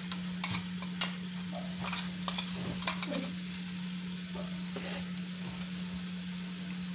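Sliced onions and crushed ginger, garlic, green chilli and shallots sizzling in hot sunflower oil in an aluminium pan, with a few light clicks in the first three seconds. A steady low hum runs underneath.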